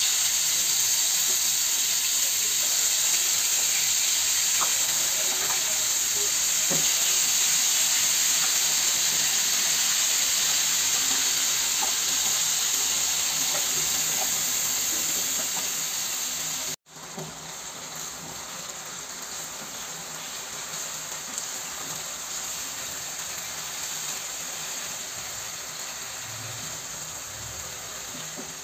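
Spice-coated koi fish frying in hot soybean oil in a nonstick pan: a loud, steady sizzle that cuts off suddenly about two-thirds of the way through and comes back quieter, with a few light knocks of the spatula.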